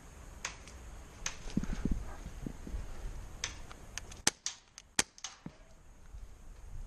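Airsoft guns firing irregular single shots: a dozen or so sharp snaps, loudest about four and five seconds in.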